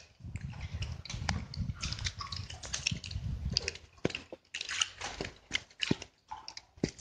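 Irregular clicks, knocks and rustling over a low rumble: close handling and water noise as a gloved hand grabs a hooked fish at the water's surface.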